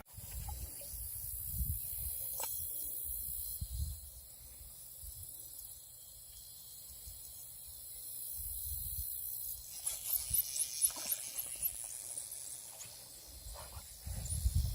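Outdoor ambience with a steady high-pitched insect buzz, some short high chirps from about ten seconds in, low wind rumble on the microphone and a few handling knocks.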